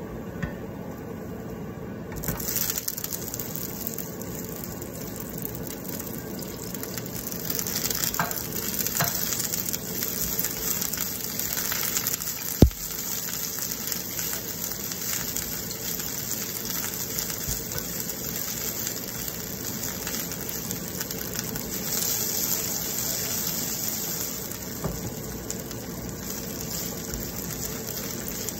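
Broccoli florets and chopped garlic sizzling in a hot nonstick pan, a steady hiss that starts about two seconds in as the broccoli goes in. A wooden spoon stirs it, with one sharp knock against the pan about halfway through.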